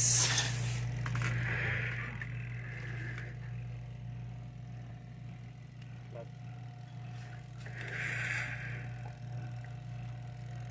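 A steady low electrical hum, with brief scraping and rustling twice, about a second and a half in and again about eight seconds in.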